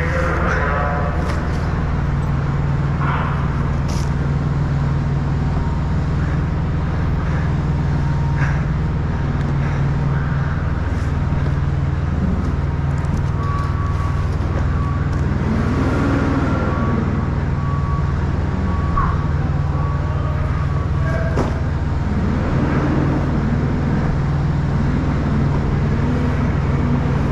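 Diesel truck engine idling steadily, a low even hum, with scattered short clicks and rustles of handling on top.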